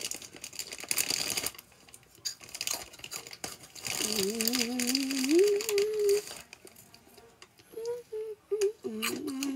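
A snack wrapper crinkling for about a second and a half, then a boy's closed-mouth 'mmm' hum held for about two seconds, and a few short hums near the end as he puts a snack in his mouth.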